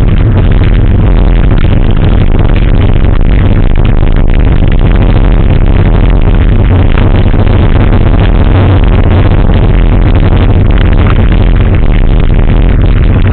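Loud, distorted electronic dance music with a steady beat, and a racing engine running under it.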